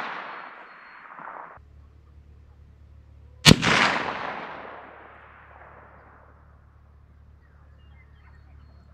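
A single shot from a PPS-43C chambered in 7.62x25 Tokarev, about three and a half seconds in, with a long echo fading over a couple of seconds. Before it, the echo of an earlier shot cuts off abruptly.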